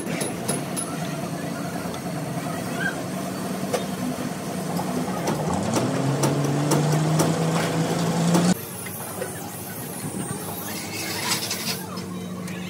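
An engine or motor running steadily with a low hum. About five and a half seconds in, its pitch rises and it grows louder, then it drops away suddenly to a quieter background hum. A few sharp clicks come near the start.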